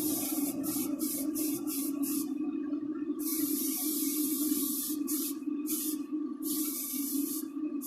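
Primer being sprayed onto small die-cast model parts: a run of short hissing bursts, then a longer spray about three seconds in and another near the end, over a steady low hum.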